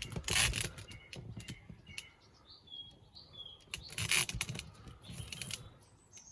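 Scraping and knocking as a washing machine is shifted round on the floor, two longer scrapes about half a second in and about four seconds in, with scattered clicks. A few short high bird chirps come in the middle.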